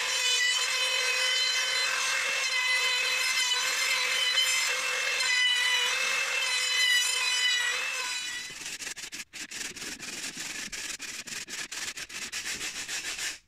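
Router with a flush-trim bit running at a steady high whine while trimming a lip off a sapele glazing bead. About eight seconds in the whine stops and a run of quick, even clicks follows.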